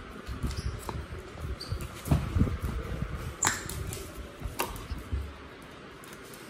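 A beagle playing tug-of-war with a rubber slipper held in a hand: scattered low thumps and rustling, with a few sharp clicks about three and a half and four and a half seconds in.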